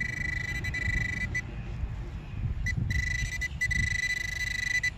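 Handheld metal-detecting pinpointer sounding a steady high-pitched electronic tone as it is held in the hole and over a handful of dirt, signalling a metal target close by. The tone breaks off for about a second and a half and then comes back, over a low rustle of soil and handling.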